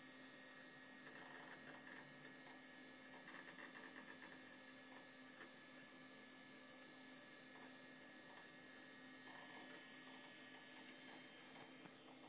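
Power Macintosh 7100 and its CRT monitor running as the computer boots Mac OS: a faint, steady hum with faint irregular chatter now and then.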